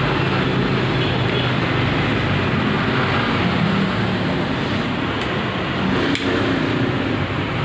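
Steady background rush and hum, like traffic or a fan, with two faint clicks about five and six seconds in.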